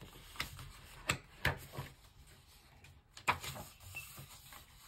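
Pages of a picture book being turned back and forth by hand, with a handful of short papery flaps and rustles.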